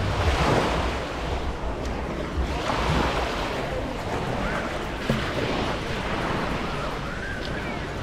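Small waves breaking and washing up a pebbly shore, surging twice, near the start and about three seconds in, with wind rumbling on the microphone.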